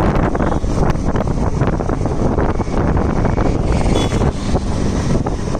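A vehicle engine running, with heavy wind rumble buffeting the microphone throughout.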